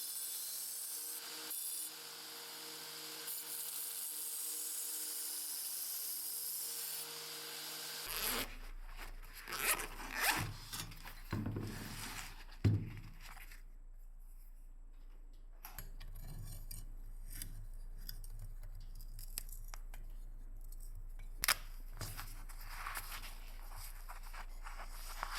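Steady hiss with a faint hum for about eight seconds, then irregular scraping and rubbing strokes from hand work on the knife, the loudest a few seconds after the change.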